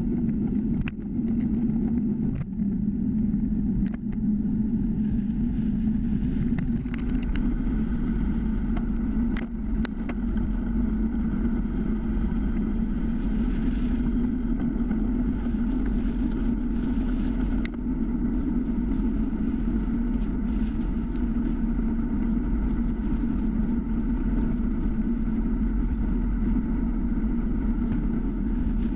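Steady wind and tyre-on-asphalt rumble picked up by a GoPro mounted on a time-trial bicycle riding at speed on a paved road. There are a few short clicks in the first ten seconds.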